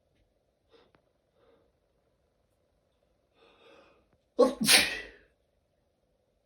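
A person sneezing once, loudly and suddenly, about four and a half seconds in, an allergy sneeze.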